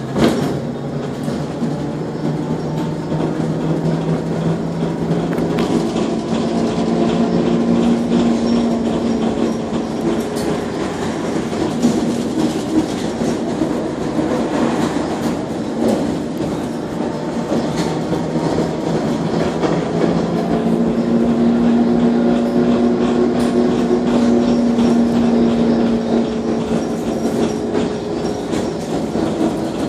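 Inside a moving trolleybus: the electric traction motor whines in steady tones that rise in pitch as it gathers speed, fall away, and rise again about two-thirds of the way through, over continuous rattling and knocking of the body on the road. A sharp knock comes right at the start.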